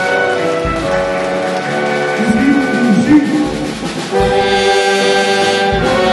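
Live orchestra with brass to the fore playing broad, held chords of a ceremonial march. The sound dips briefly a little before four seconds in, then the full ensemble comes back in louder.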